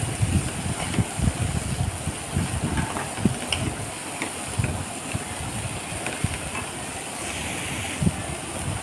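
Chopped vegetables sizzling in butter in a frying pan, a steady hiss, with irregular soft low knocks throughout.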